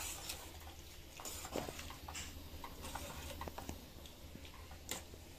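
Rice and green gram kanji bubbling in a steel pot on the stove: faint, irregular pops and clicks as it comes to the boil, over a low steady hum.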